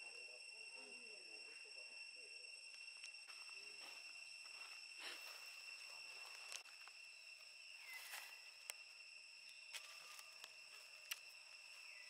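Faint, steady high-pitched buzzing of forest insects, with a few falling sweeps in pitch and scattered short sharp clicks and rustles.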